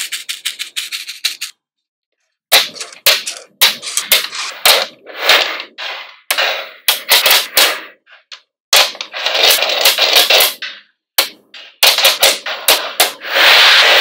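Small magnetic balls clicking and snapping together in quick runs of sharp clacks, broken by brief silences. Twice the clicks run together into a longer rattle as many balls slide against each other, loudest near the end.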